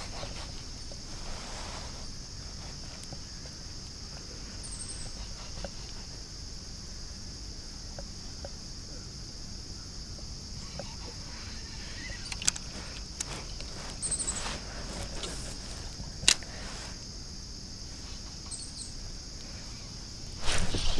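Steady high-pitched insect chorus, with a few sharp clicks from a spinning rod and reel being handled, the sharpest about sixteen seconds in.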